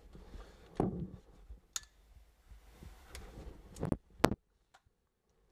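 A few separate knocks and sharp clicks, the loudest a little over four seconds in.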